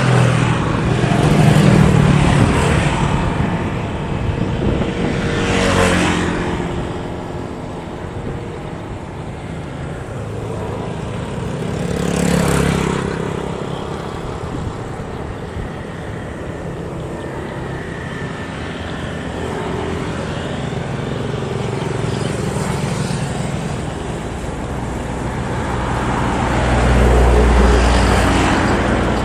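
Long-tail outboard engine of a small boat running at speed, a steady engine drone that swells and fades several times. A deep low rumble grows near the end.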